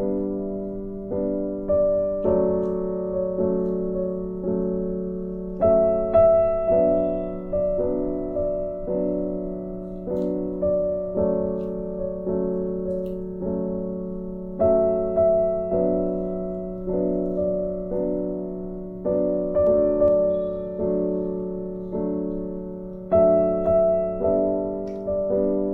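Background piano music: slow, evenly paced notes and chords, each struck about once a second and left to fade.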